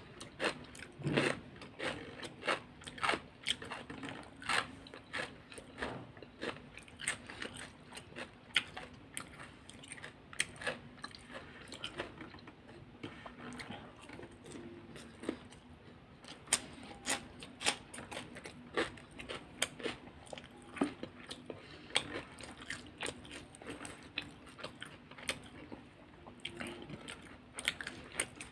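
Close-miked eating of crunchy food: a rapid, irregular run of crisp bites and crunches with chewing between them.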